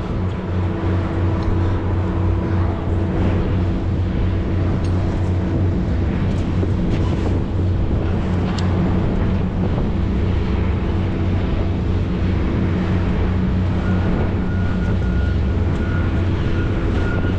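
Boat engines and deck machinery running steadily as a low, even drone. A faint thin high tone joins in near the end.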